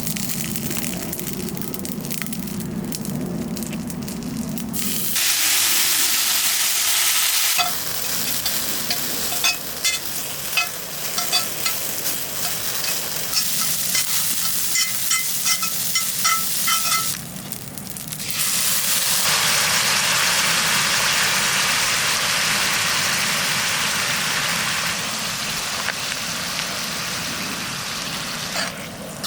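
Food sizzling and frying in a pan, with light clicks of stirring. The sizzle comes in several stretches that start and stop abruptly.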